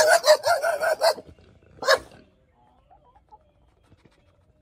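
Caged hunting dog barking: a quick run of about six barks in the first second, then a single bark about two seconds in.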